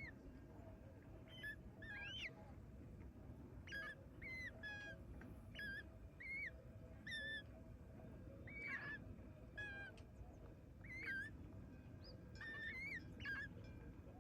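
Repeated short bird calls, about a dozen, each a brief pitched note that bends up or down, over a low steady background rumble.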